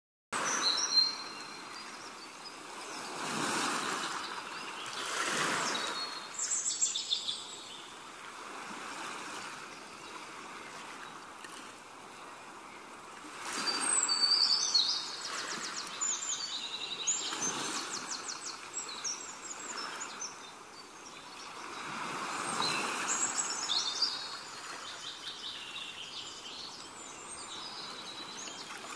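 Small birds chirping and trilling over outdoor background noise that swells and fades several times.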